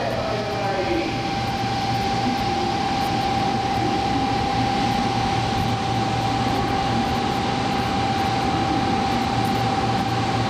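Tokaido Shinkansen train standing at a station platform with a steady low hum, while one long, unbroken high electronic tone sounds over it.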